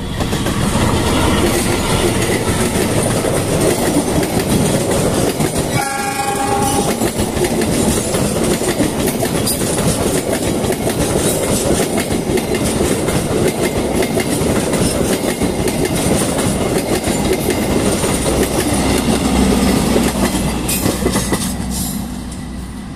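Argo Parahyangan Tambahan passenger train, hauled by a diesel locomotive, passing through the station without stopping. The locomotive's horn sounds once for about a second some six seconds in. Throughout, the carriages' wheels clatter over the rail joints in a steady rumble, which fades near the end as the last carriage goes by.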